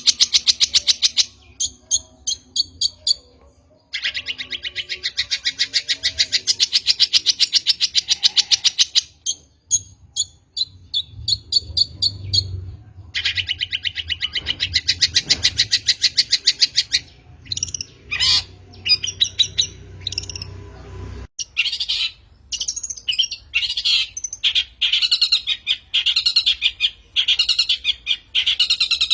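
Long-tailed shrike (cendet) singing: long, rapid rattling trills of fast repeated high notes, each run lasting a few seconds, separated by short single notes, then a more varied run of quickly changing notes over the last several seconds.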